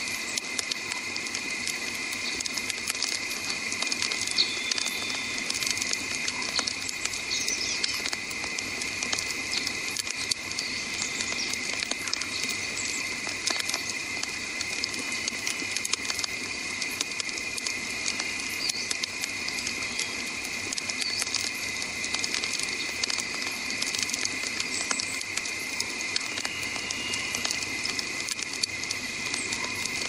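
Wood campfire crackling, with many small sharp pops and snaps over a steady hiss of burning logs. A steady high drone like an insect chorus runs underneath, with a few short high chirps.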